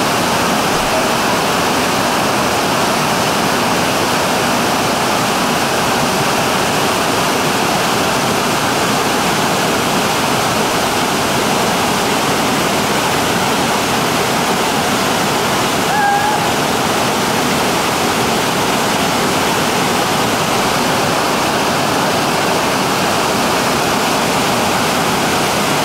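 Big whitewater rapid pouring down a steep granite slide: a loud, steady rush of water. A short faint tone sounds once about sixteen seconds in.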